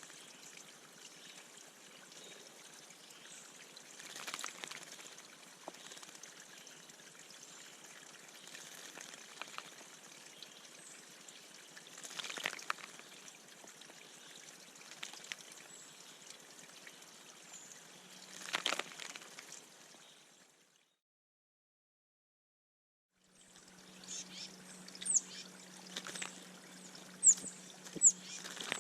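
Water trickling and splashing in a bird bath as birds bathe, with a few sharper splashes. After a brief drop-out, short high falling bird chirps come in over a low steady hum.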